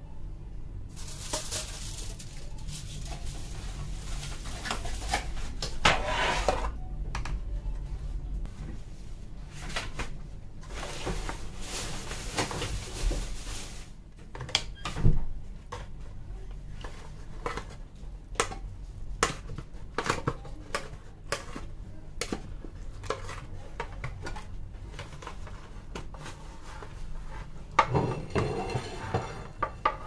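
Aluminium foil crinkling and rustling as a foil cover is peeled off a roasting tray. It is followed by a plastic spatula scraping and tapping in a thin disposable aluminium foil tray, with scattered clicks and a louder knock about fifteen seconds in.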